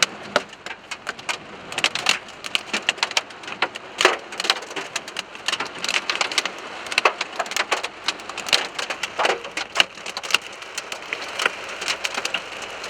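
Hailstones pelting a car's body and windshield, heard from inside the car: a dense, irregular clatter of sharp hits over the hiss of heavy rain.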